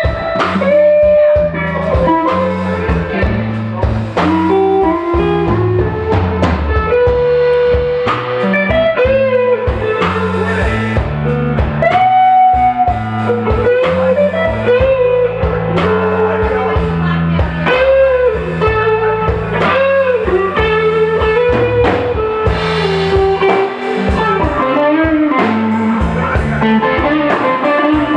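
Live blues band playing: a lead electric guitar solo of held, bending notes over bass guitar and drum kit.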